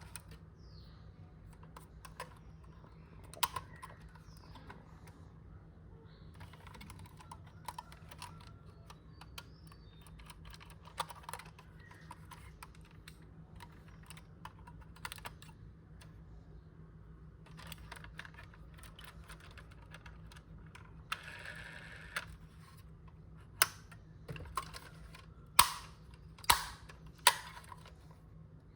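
Scattered clicks and taps of a metal diecast model car and its packaging being handled, with a brief rustling noise a little past the middle and a few louder, sharp clicks near the end, over a faint steady hum.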